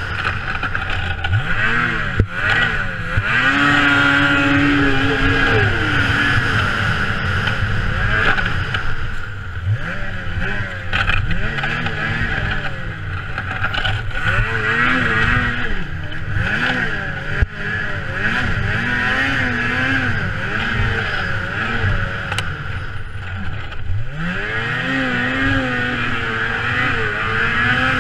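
Racing snowmobile engine heard from the rider's seat, revving up and dropping back over and over as the sled accelerates and slows through the course. There are long climbs in pitch near the start and near the end, and quicker rises and falls in between, over a steady high whine.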